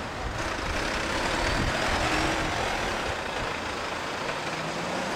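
A motor vehicle drives past close by on the street. Its engine and tyre noise swells, is loudest about two seconds in, then eases off.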